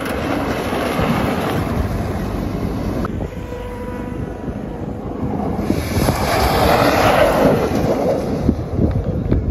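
Off-road rally pickup trucks running hard through sand, engine and tyre noise mixed with wind buffeting the microphone. A closer, louder pass swells up about six seconds in.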